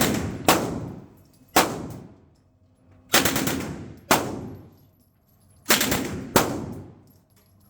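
Uzi submachine gun firing short rapid bursts, about six in all, each trailing off in an echo.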